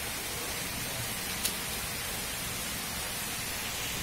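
Steady hiss of heavy monsoon rain, with one short sharp tick about a second and a half in.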